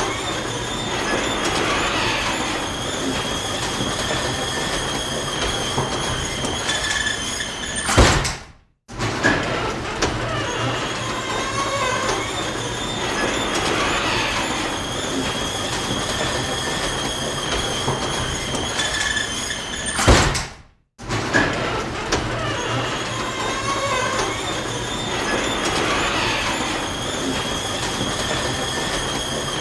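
Garage door closing: a steady rolling rumble with a faint high whine as the door travels down, ending in a loud hit as it shuts. The sequence repeats, with the hit coming twice about twelve seconds apart.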